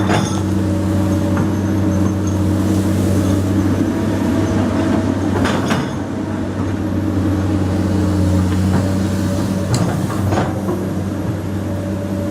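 Komatsu PC200 excavator's diesel engine running steadily, with a few sharp knocks, one about halfway through and two more near the end.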